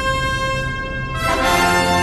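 Orchestral music excerpt of held notes. A louder, fuller chord enters a little over a second in.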